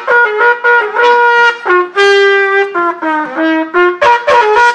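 A brass instrument playing a melody of short separate notes, with one longer held note about two seconds in.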